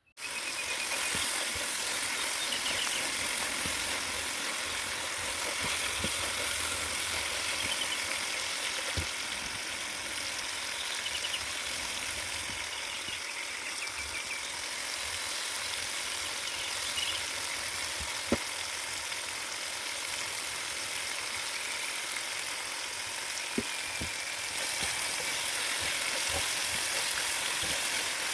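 Food sizzling steadily as it fries in a pan, with a few short sharp pops or taps.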